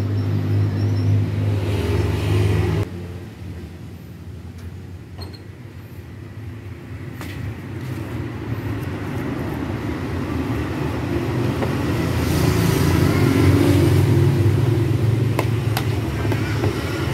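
A motor vehicle engine running steadily, cutting off suddenly about three seconds in; then another engine grows steadily louder from about eight seconds, loudest around thirteen seconds. A few sharp clicks of a metal spoon against the bowl as the bait is stirred.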